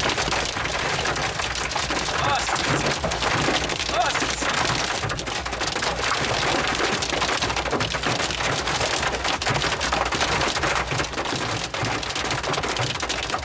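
Hail and heavy rain pelting the vehicle's roof and windshield, heard from inside the cab: a dense, steady drumming made of countless sharp taps.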